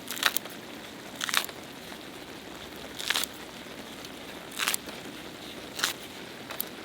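Cooking utensil scraping and stirring food on a griddle in six short, sharp strokes about a second apart, the first the loudest, over a faint steady sizzle.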